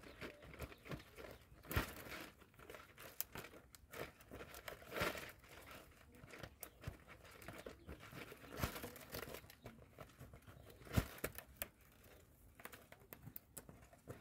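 Dry palm-leaf strips rustling and crackling as they are pulled and tucked through a woven palm chair cover, with scattered sharp clicks, the loudest about eleven seconds in.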